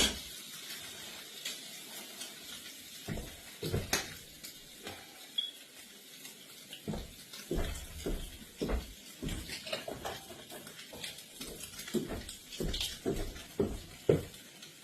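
Kitchen clatter while cooking: irregular knocks and clinks of pans, dishes and utensils being handled, over a faint steady hiss.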